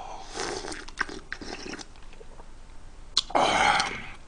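Close-up eating sounds: slurping watermelon hwachae (watermelon in cider punch) off a spoon and chewing, with small wet clicks. A louder breathy mouth sound comes just after three seconds in.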